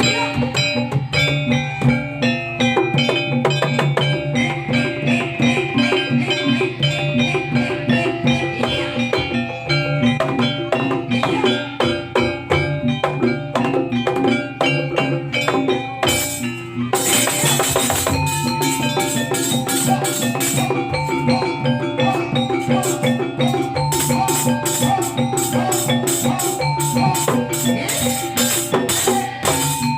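Live East Javanese jaranan music: drums and tuned metal mallet percussion playing a steady, driving rhythm. A little past the middle a loud noisy burst lasts about a second and a half, and rapid high clicks run through the last few seconds.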